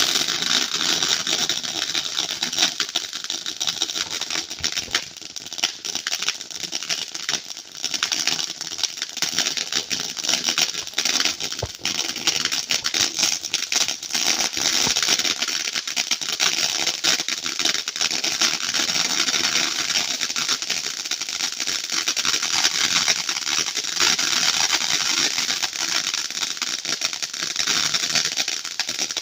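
Consumer firework fountain hissing and crackling densely and steadily, then stopping suddenly at the end.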